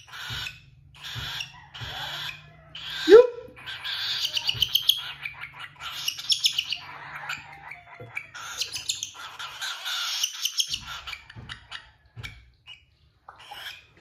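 Cockatiel giving repeated raspy begging calls while being hand-fed, with one louder, sharp call about three seconds in. The calls die away near the end.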